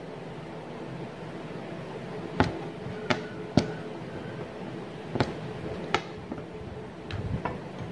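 Aari bead embroidery: sharp clicks and taps as sugar beads are pushed down the hooked aari needle onto fabric stretched taut in a frame, about five clear clicks in the middle and a few softer ones near the end, over a low steady hum.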